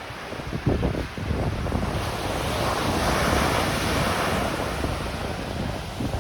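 Ocean surf: a wave washes in, swelling about two seconds in and easing off toward the end, with wind buffeting the microphone.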